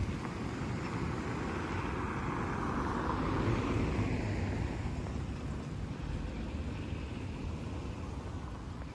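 Cars passing close by on a brick-paved street. Their tyre and engine noise swells to its loudest about three to four seconds in and then fades, over a steady low rumble.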